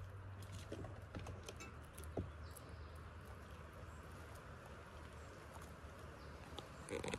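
Gray squirrel's claws scratching and clicking lightly on a log and a metal pan, over a low steady hum; near the end, a quick run of rapid clicks.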